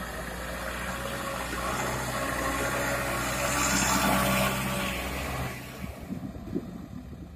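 Heavy diesel engine running, growing louder to a peak about four seconds in, then dropping away sharply at about five and a half seconds; a few short knocks follow near the end.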